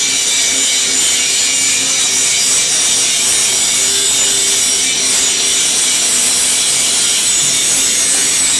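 A steady, loud hissing noise with no breaks, strongest in the high range, with a faint low hum underneath.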